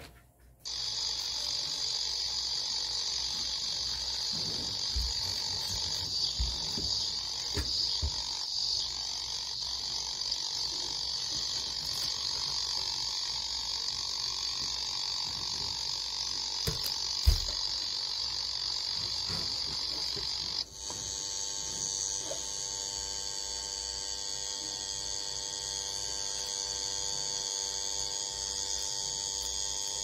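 Cicadas singing a steady, high-pitched buzzing drone. About 20 seconds in, the drone switches abruptly to a different cicada species' song with a more ringing, many-toned buzz. There is a single sharp knock a little past the middle.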